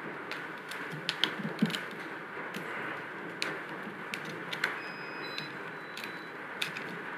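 Irregular light clicks and taps as fingers work over a SwissMicros DM42 calculator's keypad and plastic housing while its loosened, glued metal bezel plate is eased out, over a steady faint hiss.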